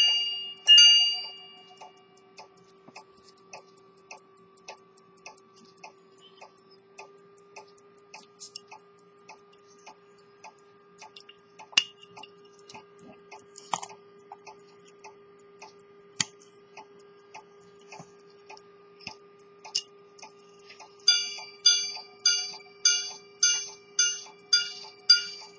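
Swiss quarter-repeater pocket watch ticking quietly and evenly, with a couple of sharp knocks in the middle. Near the end the repeater strikes its gong, loud ringing strikes about two a second. A faint steady hum runs underneath.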